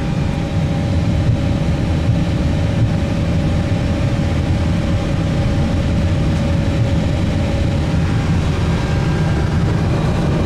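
Steady low engine rumble with a faint steady hum above it, from the vehicle moving the jet across the airport apron.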